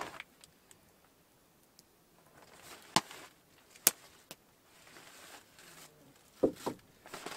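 Rummaging through a dry bag: the bag's fabric and the packets inside rustle and crinkle, with two sharp clicks about three and four seconds in and two quick knocks near the end as items in the bag hit each other.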